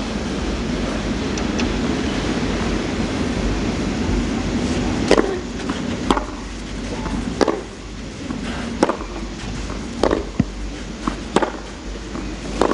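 A tennis rally on clay: racket strokes on the ball every second and a half or so, with softer ball bounces between. It begins about five seconds in, after a steady low crowd murmur.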